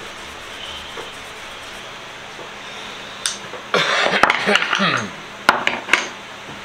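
Clattering and rattling of hard objects being handled on a workbench for just over a second, then two sharp clicks, over a steady background hum.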